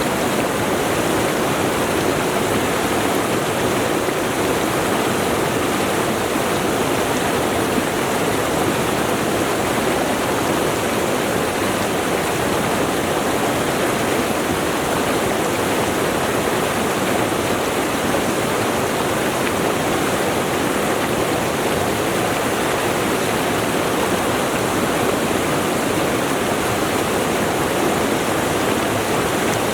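Mountain stream rushing steadily over rocks, a loud, even splashing flow of water.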